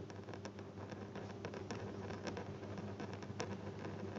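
Pen writing on paper: quick, irregular scratching strokes as a line of text is written out, over a faint steady low hum.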